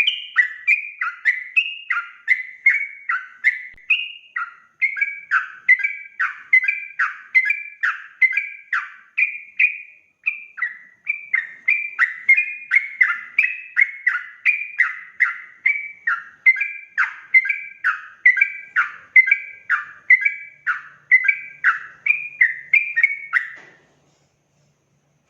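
Yellow-vented bulbul (trucukan) singing a rapid, unbroken run of short falling notes, about two a second, stopping shortly before the end.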